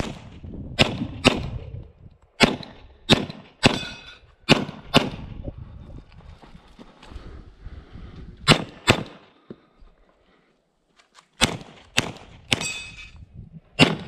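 Pistol shots fired in quick pairs, about fourteen in all, with short pauses between the pairs and one longer quiet stretch about two thirds of the way through. A metallic clang rings on after a few of the shots.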